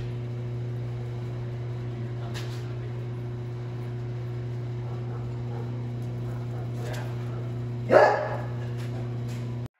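A dog barks once, loudly, about eight seconds in, over a steady low electrical hum in the shop. A few faint clicks come before it.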